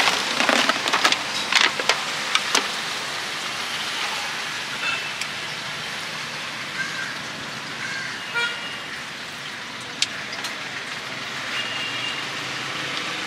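Steady street traffic noise, with short vehicle horn toots several times. A quick run of sharp knocks comes in the first two seconds or so.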